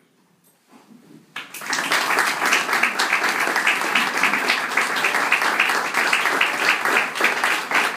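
Audience applauding, starting after about a second and a half of near silence and carrying on as steady clapping.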